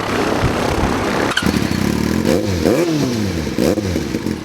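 Light aircraft's piston engine running, heard from the cockpit, with a steady drone; about halfway in, its tone starts swooping up and down about once a second.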